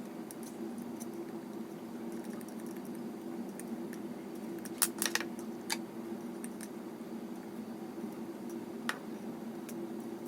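Metal tweezers clicking and tapping lightly against a hair dryer while dust is picked out of it. A few sharp clicks, bunched about halfway through, sound over a steady low hum.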